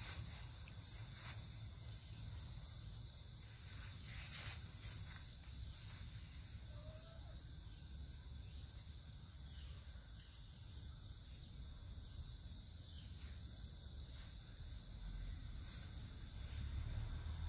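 Faint outdoor ambience: a steady high-pitched insect chorus with a low rumble underneath and a few soft clicks.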